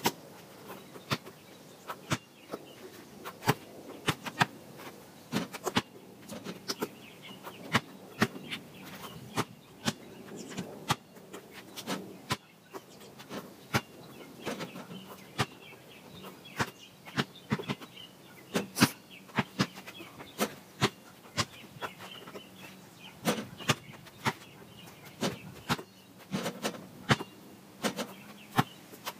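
A basketball bouncing on the driveway and hitting the rim and backboard: a stream of sharp, irregular thumps, one or two a second.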